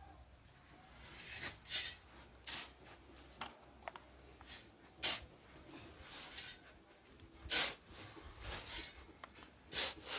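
Steel shovel blade scraping and crunching into a heap of gravel and sand, in about ten short, uneven strokes roughly one a second.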